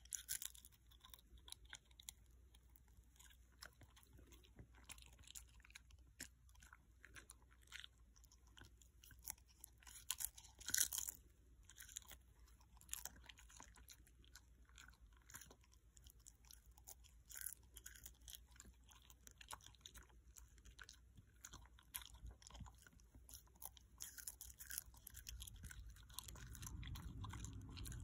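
Shikoku dog crunching and chewing a dried fish held in a hand: scattered crisp bites with pauses between them, the loudest crunches about eleven seconds in.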